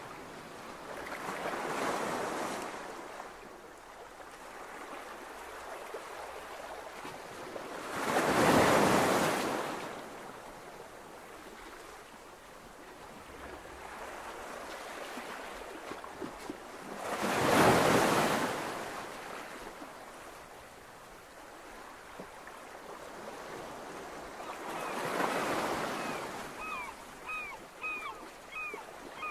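Ocean surf washing onto a beach, with waves swelling and breaking about every eight seconds. Near the end, a quick run of short high chirps repeats over the surf.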